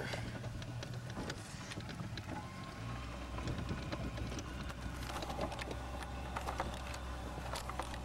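Small motorboat's engine running at low speed, a steady low drone that grows stronger about three seconds in as the throttle is worked.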